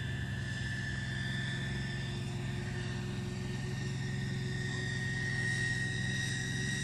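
Radio-controlled B-2 flying-wing model aircraft in flight: a steady high whine that rises a little in pitch and grows louder near the end as it comes closer.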